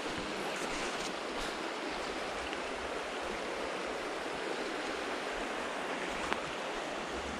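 Small creek's water running over shallow riffles, a steady rush. One light tick about six seconds in.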